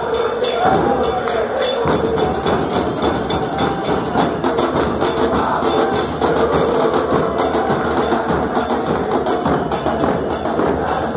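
Argentine football supporters' crowd chanting a terrace song in unison, backed by bombo bass drums and cymbals keeping a steady beat. The drums fill out about two seconds in.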